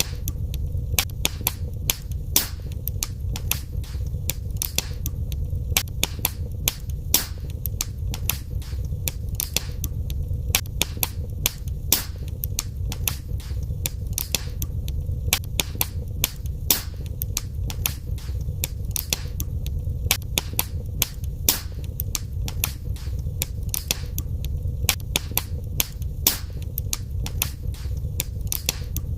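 Wood fire crackling in a fireplace: frequent irregular sharp pops and snaps, several a second, over a steady low rumble.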